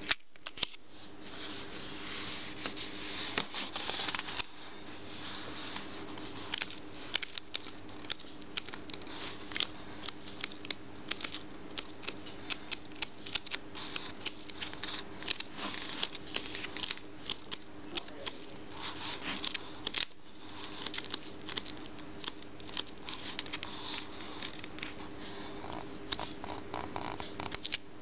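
Card pages of a postcard colouring book being turned by hand one after another: paper rustling with many quick flicks and ticks, over a steady low hum.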